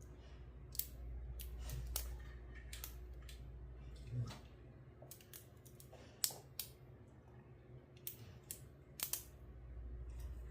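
Faint, irregular small metallic clicks of a lock pick and tension wrench working the pins of a laminated padlock's six-pin SC4 core, with a low steady hum underneath.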